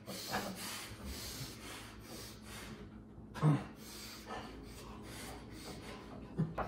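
A man eating sloppily with a full mouth: wet chewing and smacking with snorting breaths every second or so, and a louder grunting snort about three and a half seconds in.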